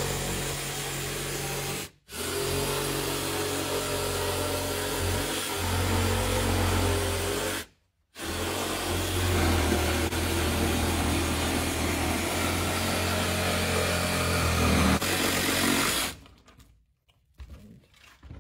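Cordless reciprocating saw cutting a round hole through an asphalt shingle roof, running steadily with two short breaks. It stops about two seconds before the end, leaving a few faint knocks.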